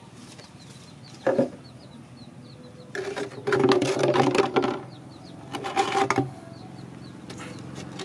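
Small birds chirping over and over in short high notes, with three louder pitched calls over them: a short one about a second in, a longer one from about three seconds to nearly five, and another around six seconds.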